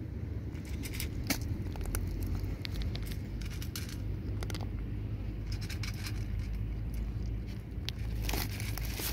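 A cat crunching dry kibble from a stainless steel bowl: runs of small sharp clicks and crackles, bunched in a few spells, over a steady low rumble.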